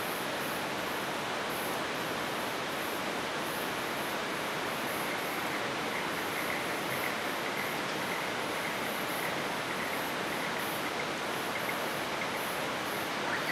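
Nighttime forest ambience: a steady rushing wash of noise with high-pitched insects pulsing about twice a second. A faint thin high tone joins about five seconds in and fades near the end.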